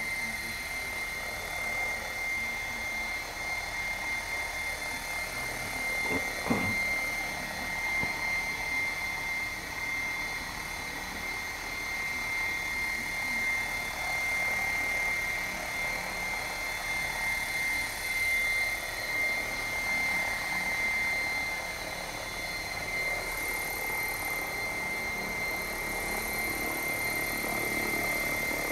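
Electric 700-size RC helicopter (Assault 700) flying at a low head speed of around 1100 RPM: a steady high-pitched whine over the rotor blades' whoosh.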